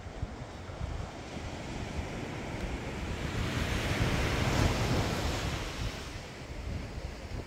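Surf breaking on a sandy beach below, with gusty wind buffeting the microphone in a low, uneven rumble. The wash swells about halfway through and fades again.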